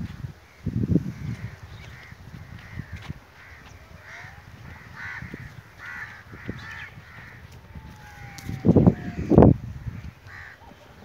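Crows cawing repeatedly, about two caws a second through the middle. Loud low bumps break in about a second in and twice near the end.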